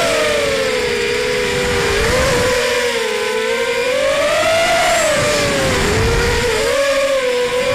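ZMR250 racing quadcopter's four T-Motor 1806 2300Kv brushless motors with 5x4.5 props, whining in several close tones whose pitch rises and falls with the throttle through fast manoeuvres. Heard from the onboard camera, over a low rush of wind.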